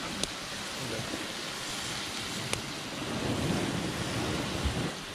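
Steady sizzling of food cooking in a pan, with a couple of light clicks. A low rumble swells about three seconds in and fades near the end.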